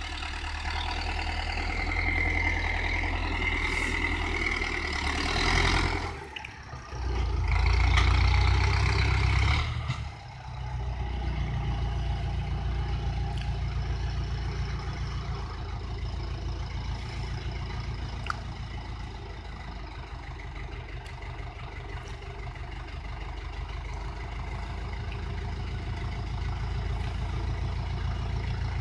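Heavy diesel engine working, loud and uneven for the first ten seconds with two short drops, then running steadily at a lower level.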